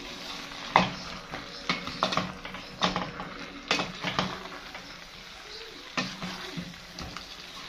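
Wooden spoon stirring chunks of green banana in a stainless steel pot, knocking and scraping against the pot's side in irregular knocks about once or twice a second, with a quieter stretch near the middle.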